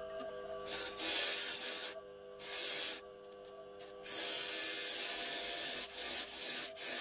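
Bench disc sander running with a steady motor hum, while a wooden knife handle is pressed against the spinning sanding disc in about five bursts of sanding hiss, the longest nearly two seconds.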